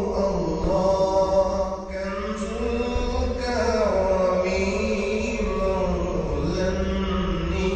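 Background music: a held, slowly gliding sung melody over a steady low drone.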